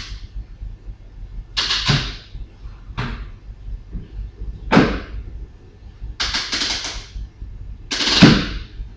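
Magnetic base of a rechargeable work light snapping onto a steel surface and being pulled off again, a series of sharp clacks, several in a quick run, the loudest near the end. The magnets grip firmly.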